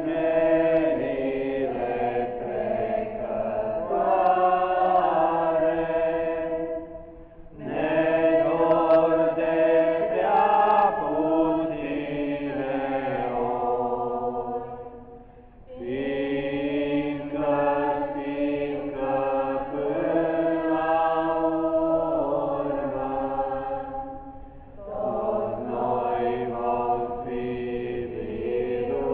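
A group of women and girls singing a hymn unaccompanied, in long phrases with a short pause for breath about every eight seconds.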